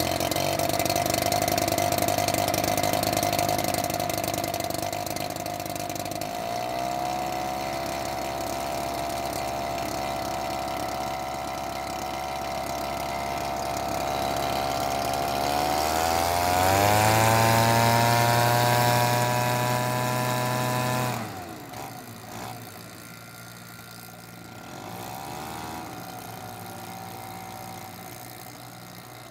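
Engine of a large-scale radio-controlled WW1 biplane model running on the ground. It settles to a lower idle after about six seconds, is throttled up to high revs around the middle, holds there, then cuts off suddenly about two-thirds of the way through.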